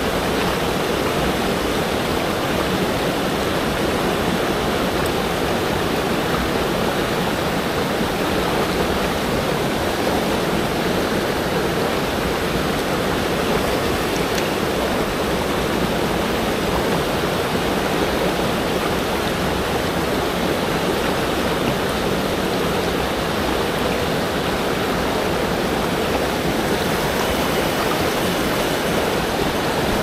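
Mountain stream water rushing steadily over rocks.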